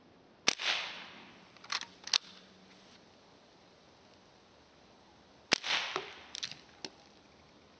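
Two shots from a Walther lever-action CO2 air rifle (4.5 mm), about five seconds apart, each a sharp crack with a short tail. A couple of lighter metallic clicks follow each shot, the lever being cycled for the next pellet.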